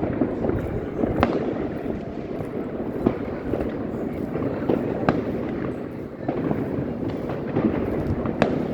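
Many fireworks going off at once: a dense, continuous crackle and rumble of bangs, with a sharper, louder bang standing out every couple of seconds, four in all.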